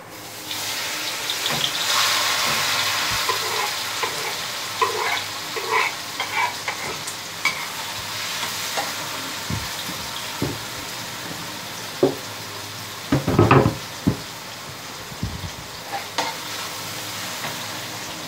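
Sliced garlic, shallots, chilli, tomato and paprika dropped into hot oil in a wok and sizzling, loudest about two seconds in and slowly fading. Short clinks of a metal spatula against the wok run through the middle, with a few louder knocks about two-thirds of the way through.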